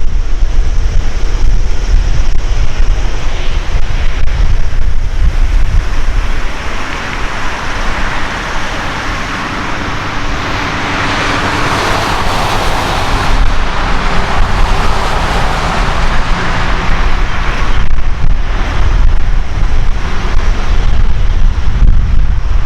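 Jet roar from an Airbus A380's four turbofan engines at takeoff power, swelling to its loudest about halfway through and then easing off. Heavy wind buffeting on the microphone rumbles underneath the whole time.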